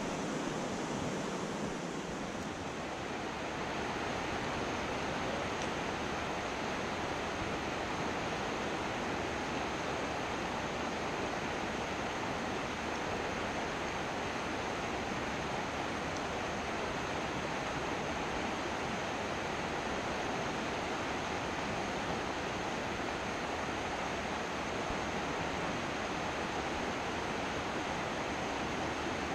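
Steady rushing of a rocky mountain trout stream, water running over stones and riffles.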